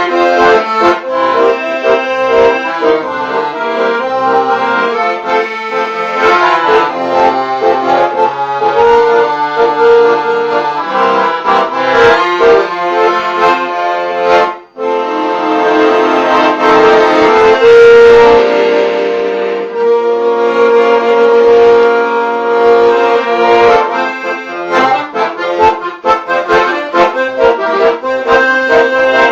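Instrumental music with many quick note changes. It breaks off for an instant about halfway through, then resumes with long held chords for a few seconds before the busier playing returns.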